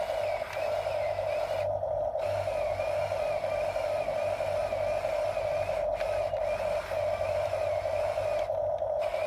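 Steady whine of the small electric motors and gearboxes of a toy remote-control construction vehicle running, with a faint higher tone that wavers up and down.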